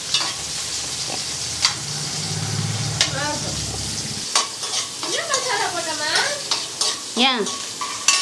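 Chopped onion and green capsicum sizzling in a metal kadai while a steel spoon stirs them: a steady sizzle, with a few sharp taps of the spoon on the pan. From about halfway there are wavering, pitched scrapes of the spoon against the pan.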